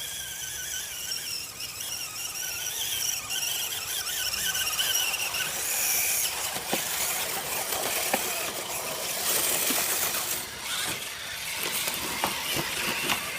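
Electric motors of radio-controlled off-road trucks whining, the pitch wavering up and down with the throttle. After about six seconds the whine gives way to a rougher hiss with scattered clicks.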